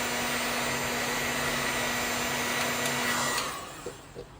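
Handheld hot-air blower running steadily with a whirring hum, heating the bottom edge of an iPhone 11 to soften the screen's adhesive seal. It is switched off about three and a half seconds in and its fan winds down.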